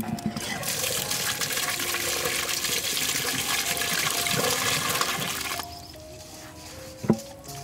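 Water running or gushing for about five seconds, then stopping abruptly, over soft background music. A single sharp knock comes near the end.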